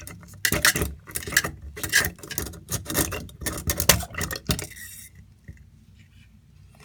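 Flexible drain-cleaning cable being pushed and worked down a sink drain, clattering and scraping against the drain in quick clicks for about four and a half seconds, then going much quieter. The cable is meeting resistance in the pipe.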